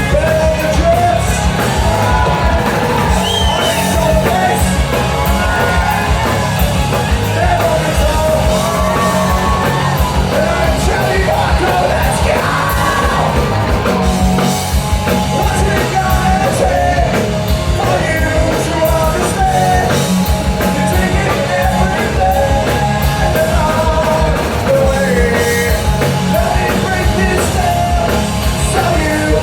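A rock band playing live, with a singer yelling the vocals over the music.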